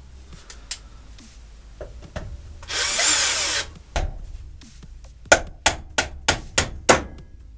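A cordless impact driver runs in one short burst, just under a second long, about three seconds in. Near the end comes a quick run of about seven sharp metal clicks as a socket wrench is worked rapidly on the hub bolt being loosened.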